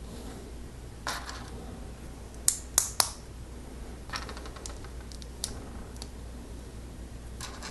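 Plastic LEGO pieces clicking and tapping as they are handled and pressed together. Three sharp clicks come close together about two and a half to three seconds in, with lighter scattered clicks before and after.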